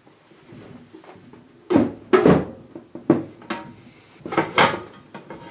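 Cassette deck cabinet and its wood-grain top cover being handled on a table as the cover is taken off: a series of about six knocks and clunks, the loudest about two seconds in and another pair around four and a half seconds.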